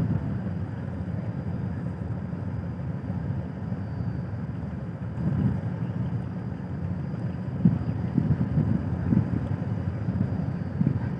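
Steady low rumble of ships' engines running at the quay, with a few brief low bumps about halfway through and near the end.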